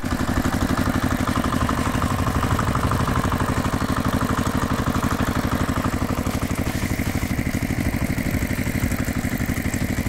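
Engine idling with an even, rapid pulse, starting abruptly and cutting off abruptly about a second after the end: an added engine sound effect rather than a sound made by the plastic toys.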